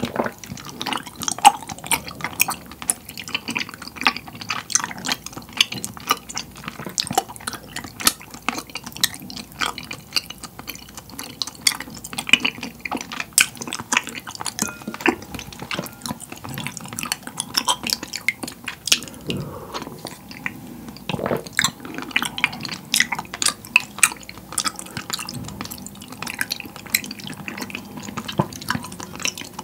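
Close-miked wet chewing of soft, chewy tapioca pearls, a dense run of small sticky clicks, mixed with a spoon stirring and scooping through milk tea in a glass bowl.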